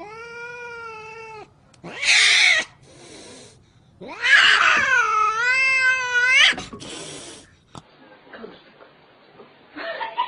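Domestic cat yowling: two long, wavering, drawn-out calls, the second louder. Each call is followed by a short harsh noisy burst, and softer scattered sounds come near the end.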